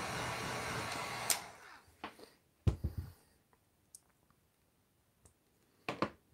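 Electric hot-air blower running steadily while it warms a plastic action-figure head to soften it for pressing onto a neck peg without breaking the pin, switched off with a click a little over a second in and dying away. Then a few short sharp knocks and taps as things are handled on the desk, the loudest near three seconds in.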